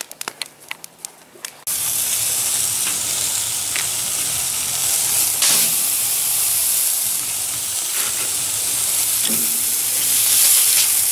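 A few sharp clicks at first. Then, from about a second and a half in, steaks sizzle steadily on a hot barbecue grill grate, with the odd faint tick of metal tongs.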